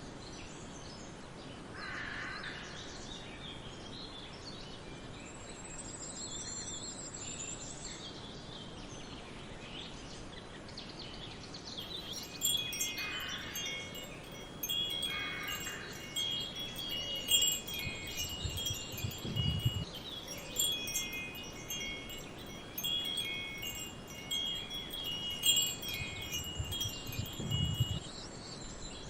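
Wind chimes ringing over soft forest ambience. From about twelve seconds in the chimes are struck again and again, a dense cluster of overlapping high, ringing tones, and they die away near the end.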